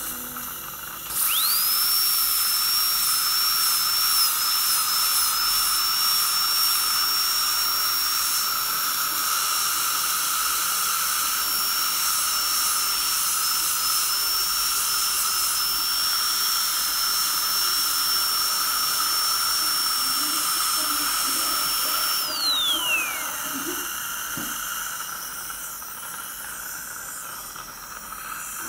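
High-speed dental drill spins up about a second in, runs with a steady high whine for some twenty seconds as it cuts on the front teeth, then is let off and spins down with a falling whine. A steady hiss from the saliva ejector runs beneath throughout.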